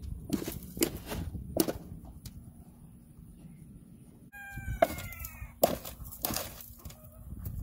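A horse feeding from and pawing beside a low rubber feed tub, making scattered sharp knocks and thuds. Around the middle a chicken gives one short squawk whose pitch falls.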